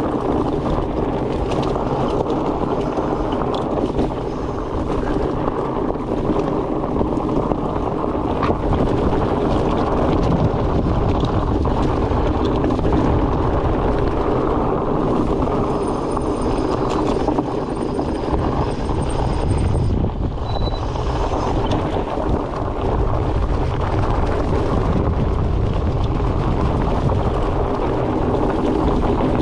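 Steady wind rush over the microphone while riding a fat bike, over a low, even drone from the bike's rolling tyres.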